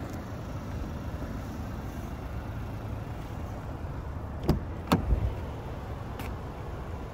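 Driver's door of a 2024 Chevrolet Equinox RS being opened: two sharp clicks about half a second apart from the handle and latch, then a fainter click, over a steady low rumble.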